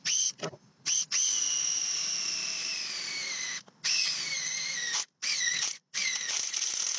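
Cordless drill with a metal-cutting bit boring into a metal scale-length ruler, run in about five trigger pulls with short gaps between them. Its high whine falls in pitch during each run.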